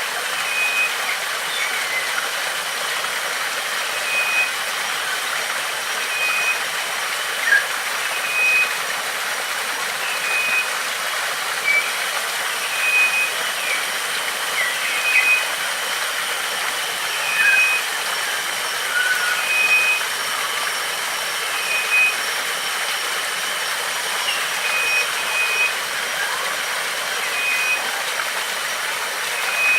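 Steady rush of a stream or small waterfall, with birds calling over it: one repeats a short high note every second or two, and others give brief chirps.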